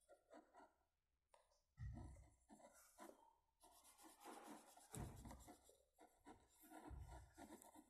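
Faint scratching of a coloured pencil shading on workbook paper, in short irregular strokes with brief pauses.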